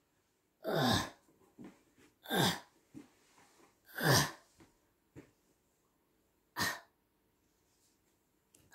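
A person's sharp, breathy exhalations: four short bursts about a second and a half apart.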